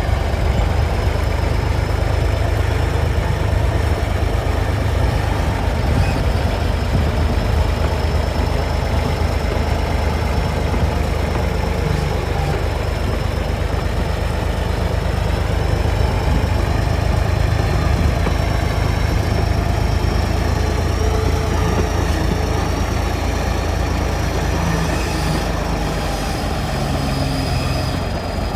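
Diesel engine of an XCMG TY230 crawler bulldozer running steadily at a low, even speed, with a thin steady high whine over it.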